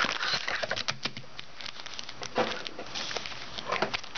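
A box of trading cards being opened by hand: crinkling wrapper and rustling cardboard, with scattered taps and clicks.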